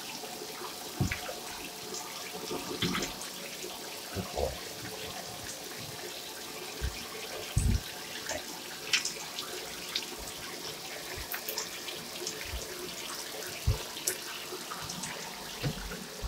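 Water running into a bathtub while a puppy is wetted and rinsed by hand, with scattered short knocks and splashes against the tub.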